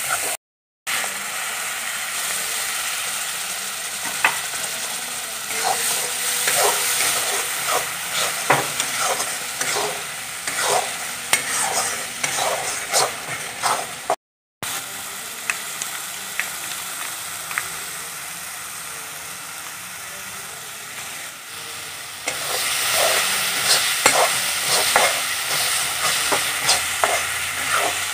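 Spice paste frying and sizzling in oil in a wok while a spatula stirs it, scraping against the pan in many short strokes. The sound breaks off briefly twice, once right at the start and once about halfway, and the stirring grows louder near the end.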